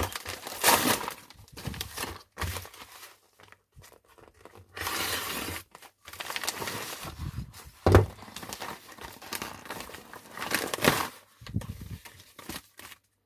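Packing tape being pulled and ripped off a small parcel, with packaging crinkling and rustling; one long tearing rip about five seconds in and a sharp knock near eight seconds.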